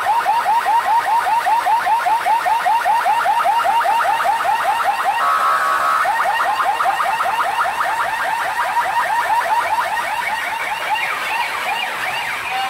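Power Plus DJ sound system blasting a siren-style electronic effect: rapid rising chirps, about five a second, at high volume, broken briefly by a steady tone about five seconds in.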